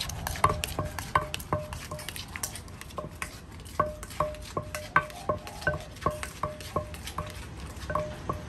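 Wooden pestle pounding salad in a clay mortar: sharp knocks about two to three a second, each with a short ringing tone from the mortar, while a spoon turns the shredded bamboo shoots between strokes. The pounding pauses briefly about two seconds in, then picks up again.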